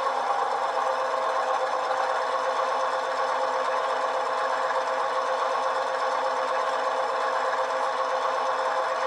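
LokSound v5 sound decoder in an HO-scale GP9 model locomotive playing its EMD diesel prime-mover sound through two tiny sugar-cube speakers, holding steady at one throttle notch during a run-up toward notch 8. The sound is thin, with little bass.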